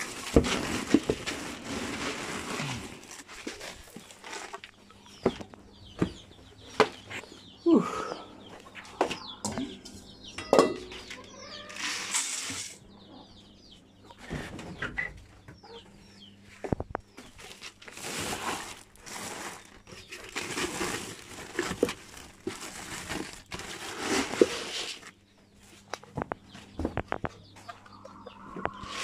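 Chickens clucking, with the rustle of woven plastic feed sacks and grain being scooped into a plastic bucket in repeated bursts, among scattered knocks and clicks.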